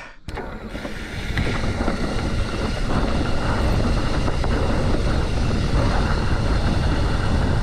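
Wind buffeting the microphone and the rumble of a mountain bike rolling fast over a dirt trail. It builds over the first couple of seconds, then holds steady and loud.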